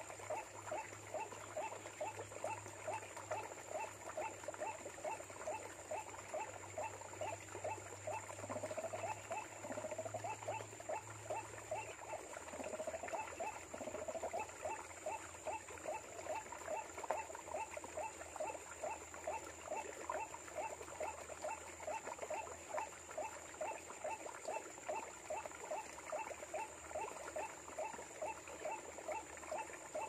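White-breasted waterhen's 'ruak-ruak' call, a long monotonous run of short notes at about three a second, played as a lure to draw waterhens to the snare.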